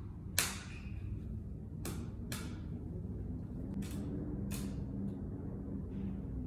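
Short, sharp crinkles and rustles of small packaging being handled by hand, about six at irregular intervals, over a steady low hum.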